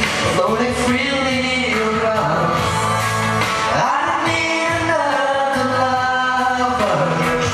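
A man singing into a handheld microphone over a recorded pop backing track, karaoke-style.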